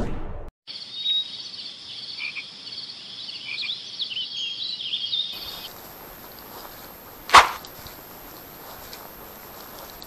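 A dense chorus of high-pitched animal calls, cutting off suddenly about five seconds in. Faint steady background noise follows, broken by a single sharp knock about seven seconds in.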